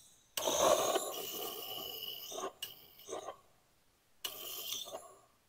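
Butane torch lighter hissing in spurts as its trigger is worked: one long spurt of about two seconds, a shorter broken one, then another near the end. It sputters and won't stay lit well, the torch running low on gas.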